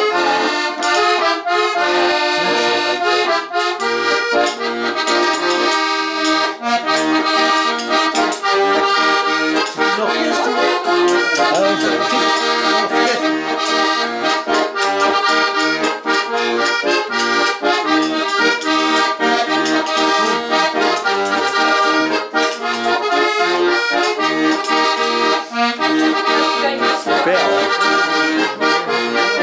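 Accordion playing a lively traditional tune: a melody of held, stacked notes over a regular beat of short bass notes.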